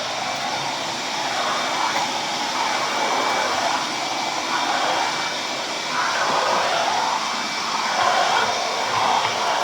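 Ridgid 5.0 HP 12-gallon wet/dry shop vac running steadily while vacuuming, its rushing airflow swelling and easing every second or so.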